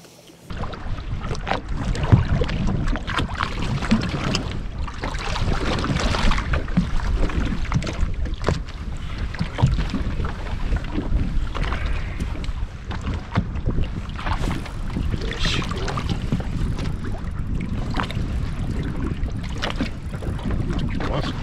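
Wind buffeting the microphone, with water slapping against the hull of a fishing boat on choppy water. The noise starts abruptly about half a second in.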